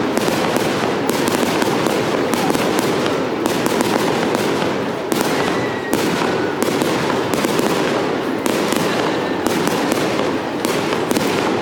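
Fireworks going off in a dense, unbroken barrage, with many bangs and crackles overlapping and no pause between them.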